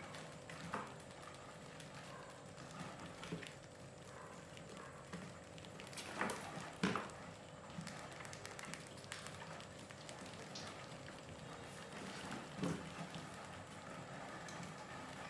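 Rats scrabbling and scurrying over a plastic bucket's rim, its cardboard lid and wooden ramps: scattered light scratches and taps, with a few louder knocks about a second in, twice around six to seven seconds in, and again near the end. A faint steady hum runs underneath.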